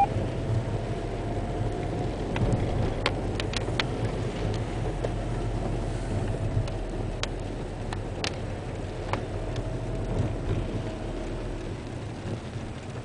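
Car cabin noise while driving in the rain on a wet road: a steady low engine hum and tyre noise, with occasional sharp ticks scattered through it.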